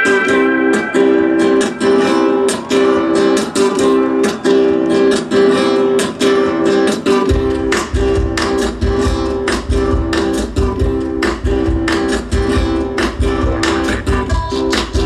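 Music led by fast, rhythmically strummed guitars, with a deep bass entering about halfway through.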